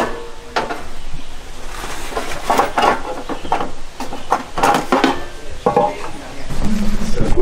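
Metal cookware and utensils clinking and clattering in a run of short, irregular knocks as items in a camp gear case are handled.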